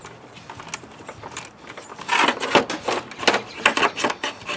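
Plastic electric cooling-fan assembly being worked up out of an engine bay, scraping and knocking against the parts around it. Faint clicks at first, then from about halfway a run of irregular scrapes and knocks.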